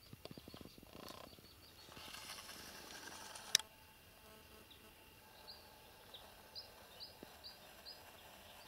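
Rustling and crackling in dry brush, with one sharp click about three and a half seconds in. After that a small bird gives a run of short, high chirps, about two a second.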